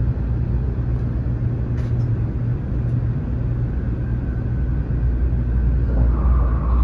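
Steady low running rumble of a Shinkansen train, heard from inside the passenger car as it nears its stop. A steady whine comes in about four seconds in and grows stronger near the end.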